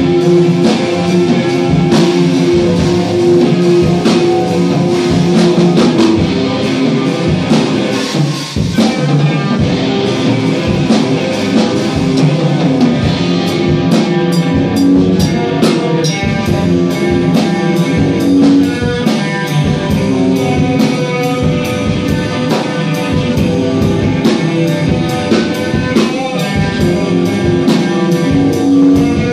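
Electric guitar and drum kit playing rock together, loud, as a two-piece band rehearsal. A steady cymbal beat comes in about halfway through.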